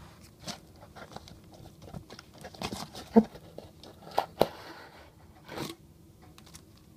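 Cardboard box and styrofoam packing insert being worked loose by hand: a string of scrapes, crackles and knocks, the sharpest about three seconds in.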